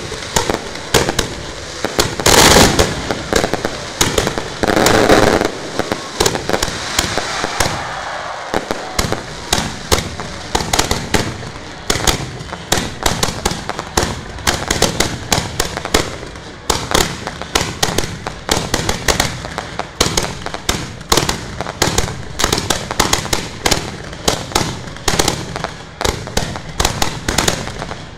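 Fireworks firing at close range: a fast, dense string of bangs and crackles that never lets up. Two longer, louder rushes come about two and five seconds in.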